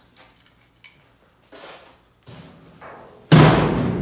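Light knocks on a sheet-metal oven cabinet, then about three seconds in a loud thud as a person steps onto its metal floor. The panels ring on afterwards and slowly die away.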